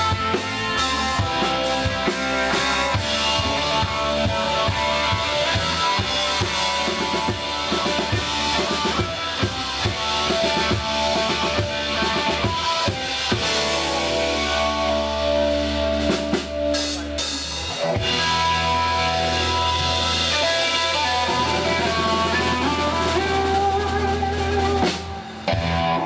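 Live band with two electric guitars, electric bass and a drum kit playing an instrumental passage, with many drum hits. The music drops away near the end.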